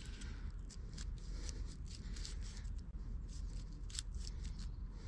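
Knife blade scraping dry birch bark in a quick series of short strokes, shaving off fine fibres as tinder for a ferro-rod spark.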